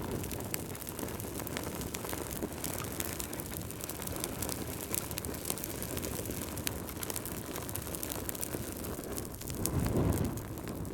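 Wood fire burning in a fireplace: a steady low rush of flame with frequent sharp crackles and pops from the logs. The rush swells louder for about a second near the end.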